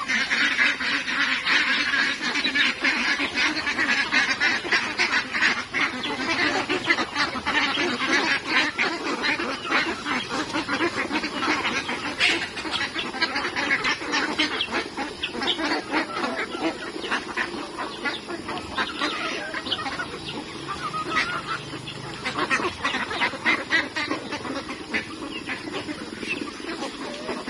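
A flock of domestic ducks quacking in a noisy, overlapping chorus as they crowd around scattered feed. The calling is thickest in the first half and eases off toward the end as the birds settle to eating.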